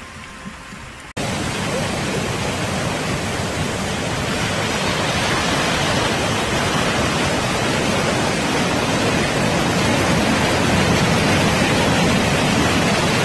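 Floodwater rushing in a steady, loud torrent, pouring over a wall; it cuts in abruptly about a second in after a quieter stretch of water noise and grows slightly louder.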